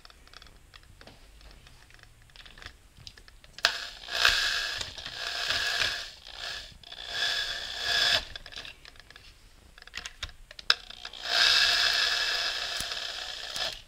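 Makita electric drill with a socket in its chuck running bolts down into an automatic transmission case. It goes in four short runs of motor whine, the last and longest near the end, with clicks between the runs.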